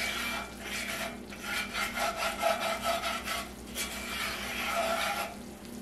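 Mini wire whisk scraping round and round a cast iron skillet as it stirs a thick flour-and-oil roux being cooked to brown, in many quick strokes.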